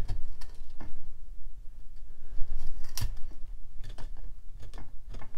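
Narrow chisel scraping and prying fragments of an old broken tenon out of a round mortise in an oak chair leg: a string of irregular small clicks and scrapes, the sharpest about three seconds in.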